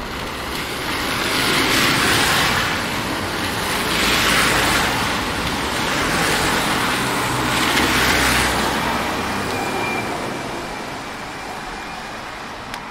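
Road traffic passing on a wet street: three cars go by, their tyre hiss swelling about two, four and a half and eight seconds in, then fading away.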